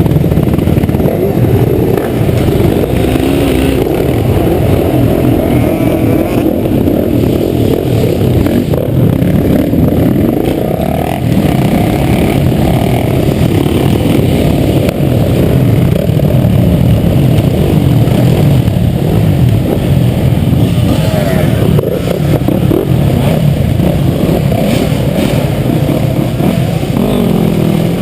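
Motocross bike engine running hard, revving up and down continuously as it is ridden around the track.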